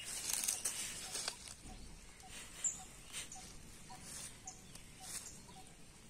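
A hand scraping and patting loose dry soil into a small grave, with short crumbling, rustling scrapes of dirt, busiest in the first second or so. A faint short call repeats about twice a second in the background.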